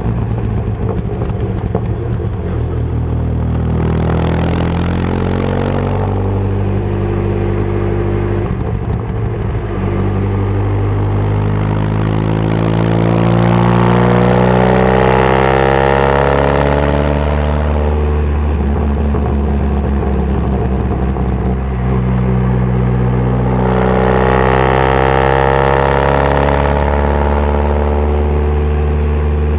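Ford 2.0-litre Zetec four-cylinder engine in an MG Midget race car running hard on track, heard from the open cockpit. It rises in pitch in three main surges as it pulls up through the revs, falling back between them.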